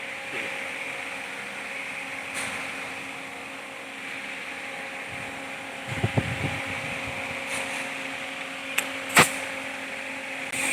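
A steady mechanical hum, like a fan, with a few low thumps about the middle and two sharp clicks near the end, the second the loudest.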